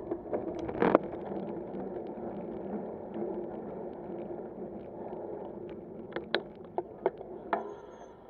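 Riding noise of a moving bicycle: a steady rush of tyres and wind. There is one sharp knock about a second in and a few short clicks and rattles near the end.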